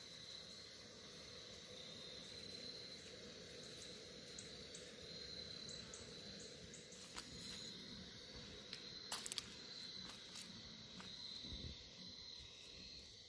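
Faint evening insect chorus, a steady high-pitched chirring, with a few soft clicks scattered through it and a small cluster of them about nine seconds in.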